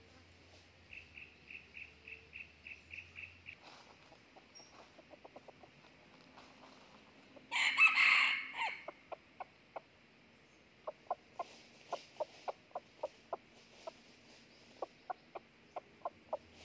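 Red junglefowl rooster crowing once, a short harsh crow about seven and a half seconds in that is the loudest sound, then giving runs of short sharp clucks, about three to four a second.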